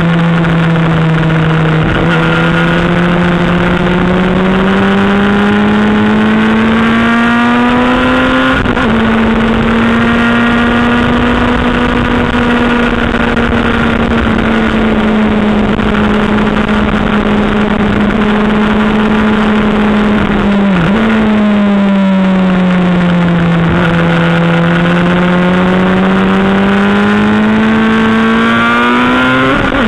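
Sport motorcycle engine heard on board at speed on a race track, running hard with its note rising and falling slowly through the corners and a few abrupt jumps in pitch at gear changes, over a steady rush of noise.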